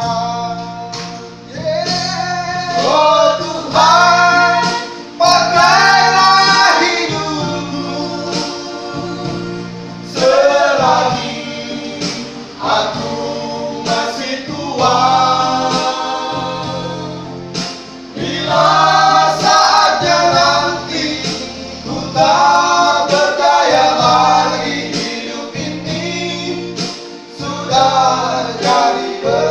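A small group of men singing a gospel song together in harmony, phrase by phrase with short breaths between, over steady held accompaniment chords.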